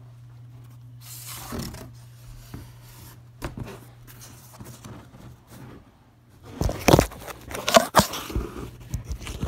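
Cardboard box flaps being folded shut and scraping, then packing tape being ripped off the roll and pressed onto the box in loud sharp rasps over the last few seconds, heard from inside the closed box.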